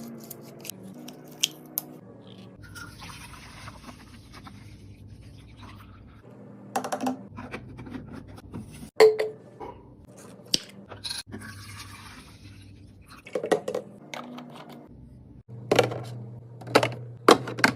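Restocking sounds: snacks and drinks being handled and set down in a cart or fridge, with scattered clicks and taps and two stretches of rustling packaging.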